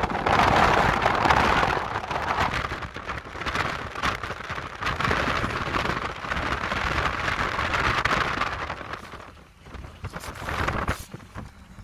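Wind buffeting the microphone from a moving car, blended with road noise. It rises and falls in gusts, dropping away for a moment about nine seconds in and fading near the end.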